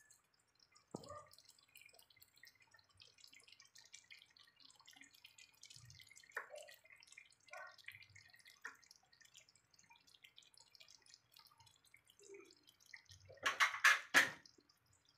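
Rice and broth simmering in a pot, with faint, scattered bubbling pops. Near the end there are two loud, short noises a moment apart.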